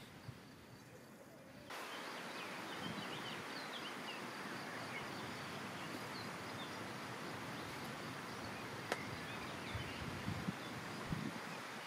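Outdoor bankside ambience: a steady hiss that starts abruptly about two seconds in, with many short high bird chirps scattered over it. There is one sharp click in the middle and a few low knocks near the end.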